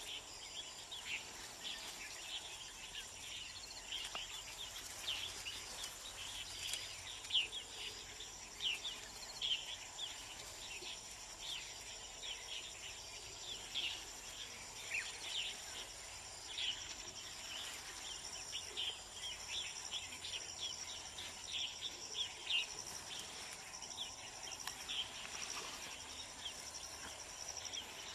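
Insects trilling steadily at a high pitch, with many short, quick chirps scattered throughout.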